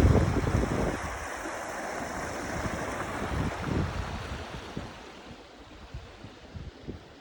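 Flowing stream water rushing, with wind buffeting the microphone at first; the sound eases off and grows quieter over the last few seconds.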